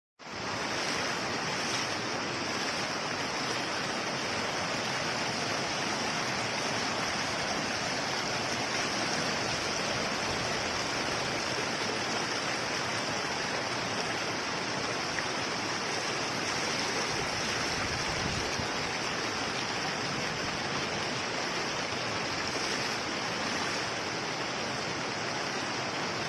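Floodwater rushing steadily, heard as a dense, even hiss of moving water that starts and cuts off abruptly.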